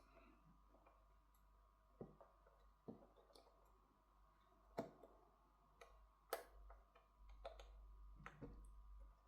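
Faint, scattered small clicks and taps of hand tools and parts on an opened smartphone being reassembled, with a few sharper clicks among them.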